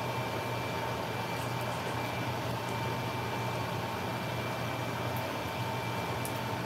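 Omelette egg mixture sizzling steadily in a frying pan, with a few small pops, over a constant hum.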